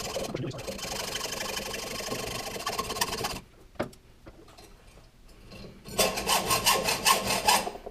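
Hand hacksaw sawing through metal stock held in a lathe chuck, in quick back-and-forth strokes for about three and a half seconds. After a pause with a couple of light knocks, a second fast run of strokes comes near the end, about five a second.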